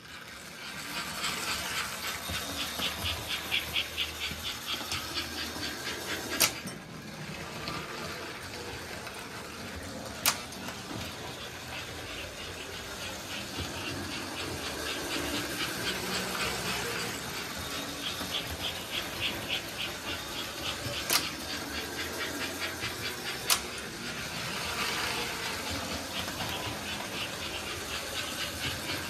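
Two American Flyer S-gauge toy steam locomotives running around the track: a steady motor and wheel noise with a fast rhythmic pulse. Four sharp clicks are spread through it.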